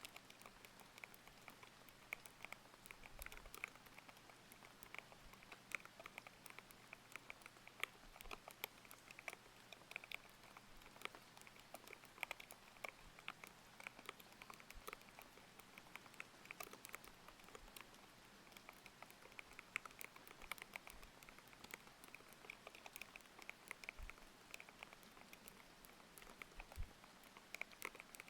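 Continuous typing on a thocky mechanical keyboard with linear Aqua King switches: a quick, irregular stream of soft key clacks. A steady rain hiss is layered underneath.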